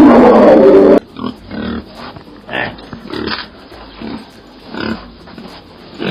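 A very loud animal call, distorted at full level, ends abruptly about a second in. It is followed by a pig grunting in short, separate grunts, about one every second.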